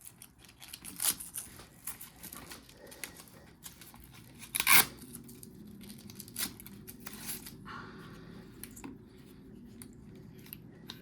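Hands working plastic parts: a run of clicks and knocks with rustling, the sharpest knock about five seconds in, as a hard-case LiPo battery pack is handled and fitted into an RC crawler's plastic battery tray.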